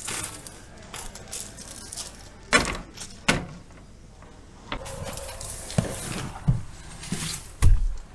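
Small bags of metal nuts rattling and clinking as they are handled on metal peg hooks, with several sharp clacks. A heavier thump comes near the end.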